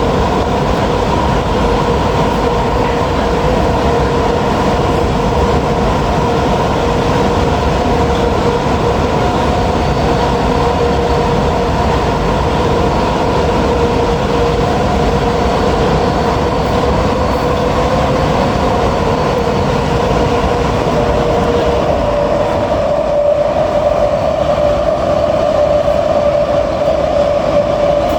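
Kawasaki-Sifang C151B MRT train heard from aboard while running, a steady rumble with a steady whine in two tones. About two-thirds of the way through, the whine shifts to a single stronger tone a little higher than the lower one.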